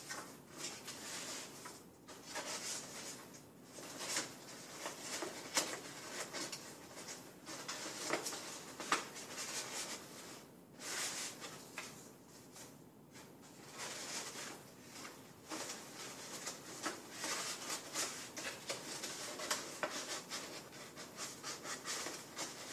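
Stiff paper lamp pieces rustling, scraping and crinkling as they are bent and slotted into one another by hand, on and off, with scattered small crackles.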